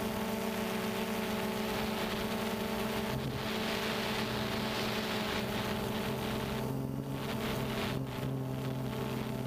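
DJI Phantom 2 quadcopter's four electric motors and propellers whining steadily in flight, heard from the camera slung beneath it, with rushing wind noise on the microphone that swells and dips.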